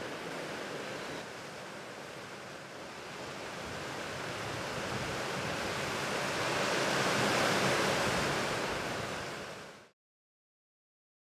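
White water rushing and foaming over rocks at the sea's edge, a steady roar that swells in the middle and then fades out near the end.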